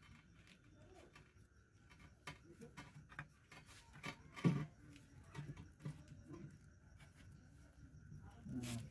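Faint rubbing, rustling and small knocks of a flexible rubber liner sleeve being pressed and worked by hand into a butterfly valve body. There is one louder short knock or thud about halfway through.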